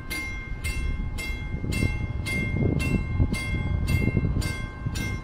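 Lift-bridge warning bell ringing steadily, about two strikes a second, as the gates reopen the road, with a low rumble of vehicles underneath.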